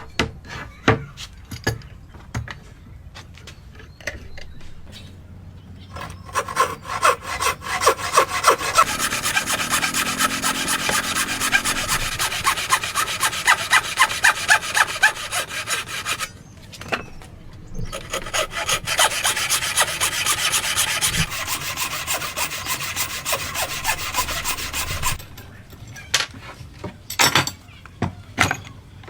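Wood worked by hand in two long spells of quick, even back-and-forth strokes, like hand sawing or rasping, with a pause between them. Scattered light knocks and taps on wood come before and after.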